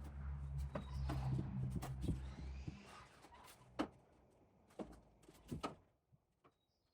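A low steady hum that fades out about three seconds in, followed by a few separate knocks and clicks.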